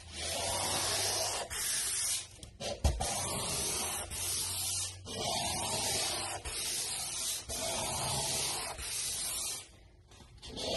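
Sandpaper disc rubbed by hand back and forth across a painted countertop, roughly one stroke a second, scratching up the surface so a cement skim coat will bond. A single sharp knock about three seconds in; the strokes pause briefly near the end.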